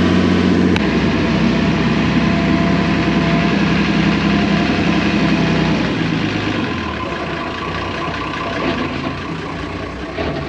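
Fishing boat's engine running steadily, with a change in its note just under a second in; it grows quieter about six seconds in.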